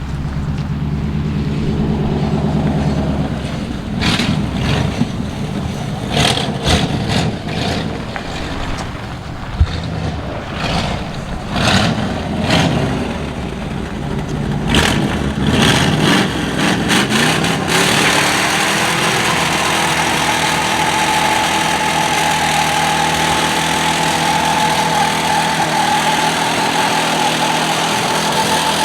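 1968 Chevy C10's 327 small-block V8 running, revved in a series of short bursts, then held at high revs about two-thirds of the way through as the rear tyres spin in a burnout, with a steady high whine over a hiss.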